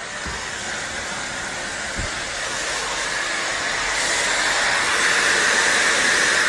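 Handheld hair dryer running steadily, a loud even rush of blown air as it dries hair, growing a little louder toward the end before cutting off abruptly.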